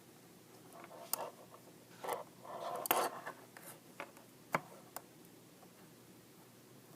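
Knitting needles clicking against each other with yarn rustling as stitches are worked: a handful of sharp clicks over the first five seconds and a stretch of rustling in the middle.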